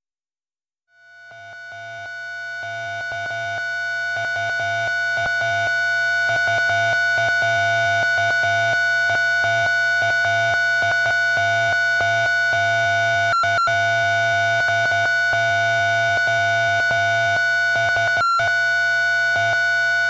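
Instrumental synthesizer music fading in after about a second of silence: two steady held high tones over a pulsing low bass, with two very brief dropouts in the second half.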